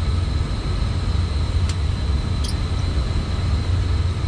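Steady low rumble of running boiler-room equipment, with two small sharp clicks near the middle as igniter wires are worked loose from their connections.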